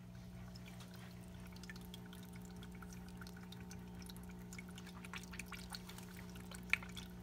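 Marineland aquarium filter running: a steady motor hum with water trickling and dripping from its outflow into the tank. A single sharper click near the end.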